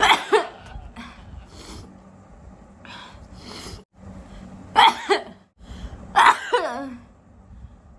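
A woman sneezing three times: once right at the start, then twice more about five and six seconds in. The sneezes are set off by sniffing spice powder.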